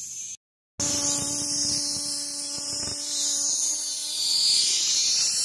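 Cicada held between the fingers buzzing: a loud, harsh, high-pitched drone that starts after a split-second gap and swells a little toward the end.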